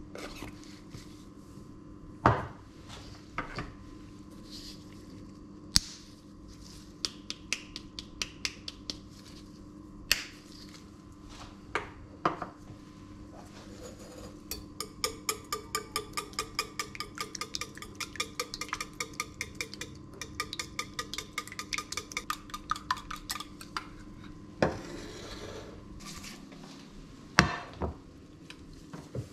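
A wire whisk beating eggs in a small metal bowl: fast, even clinking of the wires against the bowl, about four or five strokes a second, for roughly ten seconds mid-way. Before it, scattered clicks and taps from spice shakers over the bowl; near the end, a few loud knocks of a frying pan being set on the hob.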